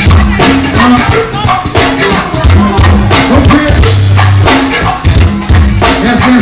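Live go-go band playing a steady, percussion-driven groove: conga drums, tambourine and a bass line.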